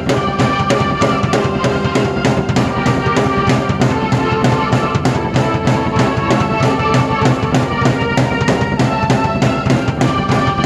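Drum kit and keyboard played together: a steady beat of bass drum and snare under held keyboard chords that change every few seconds.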